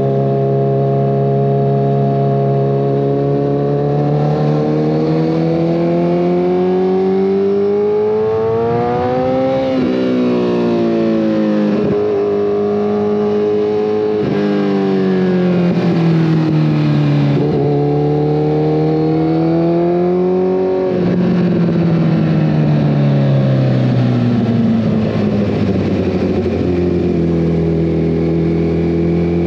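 2014 Kawasaki ZX-14R's inline-four engine through a full Brocks Alien Head 2 exhaust, heard from the rider's seat: the revs climb and fall as the rider accelerates and rolls off, with sudden drops in pitch about ten seconds in and again about twenty seconds in.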